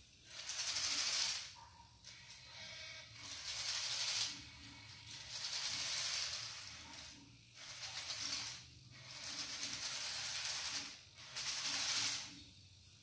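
Robot tank's two small DC motors driving its tracks across a tile floor in short runs, a hissing, rattling whir. There are about six bursts of one to two seconds each, with short pauses between them.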